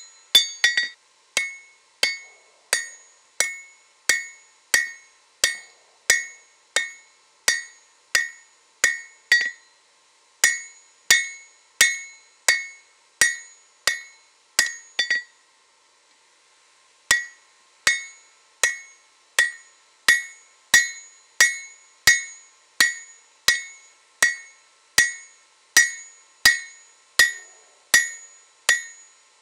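Hand hammer forging a red-hot leaf-spring-steel blade on an anvil: steady blows about one and a half a second, each with a bright metallic ring. The blows stop for about a second and a half midway, then resume at the same pace.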